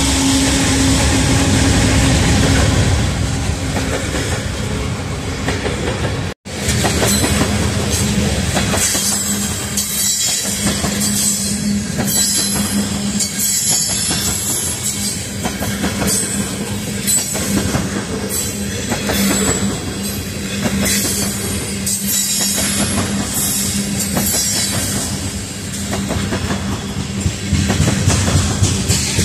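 A freight train passing close by: diesel locomotives rumble past first. After a brief dropout about six seconds in, a long string of tank cars rolls by with wheels clattering over rail joints and squealing.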